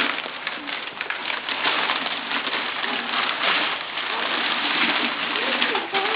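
Paper rustling and crinkling as it is pulled out of a gift box, with a child's faint wordless voice sounds.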